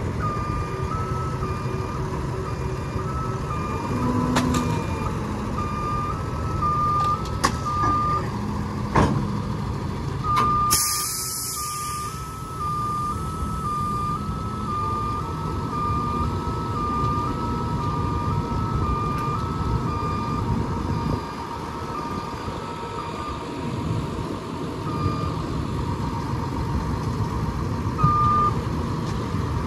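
Maintenance truck's reversing alarm beeping about once a second over its running engine; the beeping stops about two-thirds of the way in. A short, loud hiss comes about a third of the way in, and there are a few sharp knocks.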